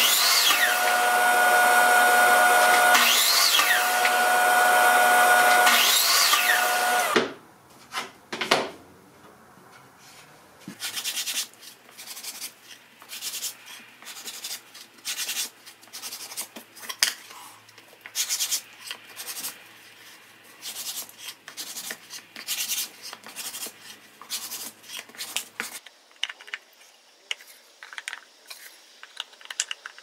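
Sliding compound miter saw running loud with a steady whine and a dust extractor, with three brief changes in its sound as it cuts a thin wooden panel; it cuts off suddenly about 7 seconds in. After that, soft clicks, wooden knocks and rubbing as cut wooden pieces are handled and fitted together, thinning out near the end.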